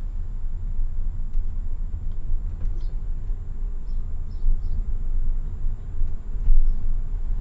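Car driving along a city street: a steady low rumble of road and wind noise, with a few faint high chirps about three to five seconds in.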